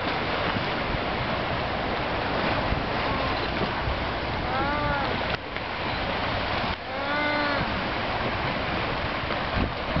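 Galápagos sea lion calling from the water: two short calls, each rising then falling in pitch, about five and seven seconds in, with another starting at the very end. A steady rush of wind and surf runs underneath.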